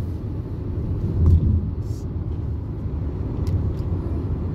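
Steady low rumble of a car's road and engine noise heard from inside the cabin while driving, with a brief louder swell about a second in.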